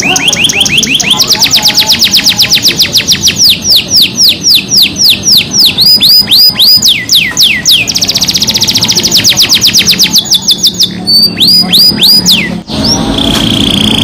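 Domestic canary singing a rolling song: fast trills of repeated whistled notes that sweep downward, some phrases quick and buzzy, others slower with longer swoops. The song breaks off briefly near the end and goes on with a single held note.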